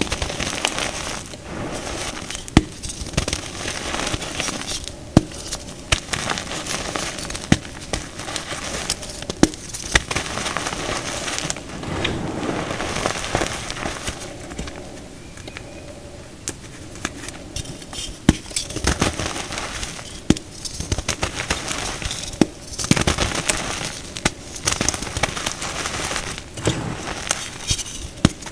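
Hands crushing and crumbling dyed powder blocks and squeezing loose powder: soft crunching and rustling with frequent sharp cracks as pieces break apart.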